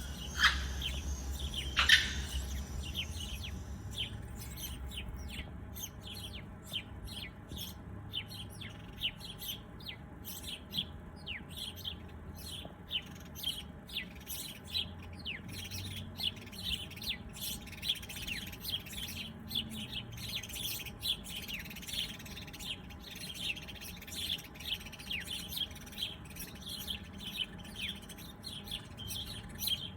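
Small birds chirping in quick, overlapping short high calls, many a second. Two louder, sharper calls come in the first couple of seconds, over a low rumble that fades out.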